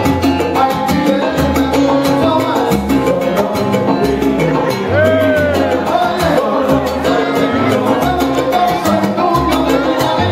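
A live salsa band playing, with conga and timbales percussion over a repeating upright bass line and piano, and a male lead singer singing into a microphone.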